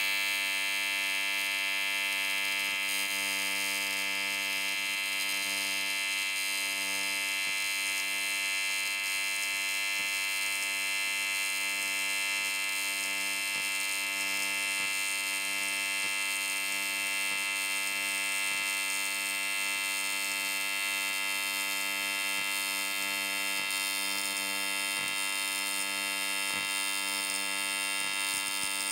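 AC TIG welding arc on aluminum buzzing steadily. It holds one even hum pitched by the machine's 100 Hz AC frequency, with a bright edge of high overtones.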